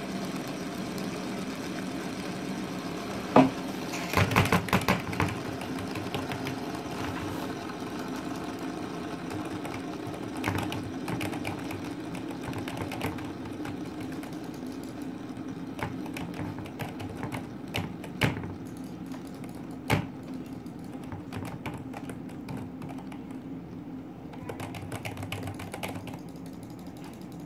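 Red fidget spinner spinning on a tabletop: a steady whir that slowly fades as it winds down and stops. Sharp clicks from a computer being clicked are scattered through it, several together about four seconds in.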